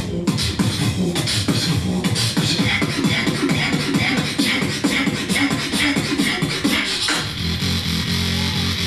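A beatboxer performing live through a PA: a fast, dense run of vocal kick, snare and hi-hat sounds over a pitched bass line. About seven seconds in, the run gives way to a held low bass tone.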